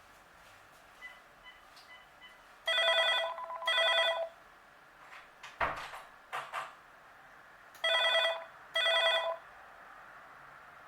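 Electronic telephone ringing as a call goes through to an answering system: two double rings about five seconds apart, each ring a short warbling tone. A few faint short beeps come before the first ring, and there are a couple of clicks between the rings.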